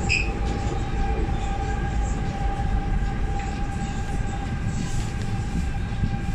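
Guangzhou Metro Line 6 linear-induction-motor train running in a tunnel, heard from inside the car: a steady low rumble with a steady whine from the drive. A brief high squeak comes right at the start.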